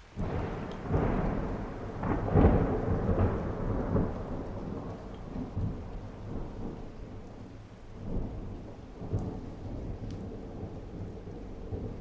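A thunderclap breaks suddenly over heavy rain and rolls, loudest in the first few seconds. It then rumbles on and fades, with two more rolls later.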